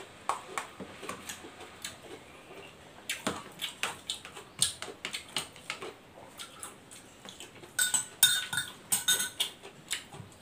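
Metal spoon clicking and scraping against a plastic food container and a ceramic bowl while eating, with small clicks throughout. A run of louder, ringing clinks comes near the end.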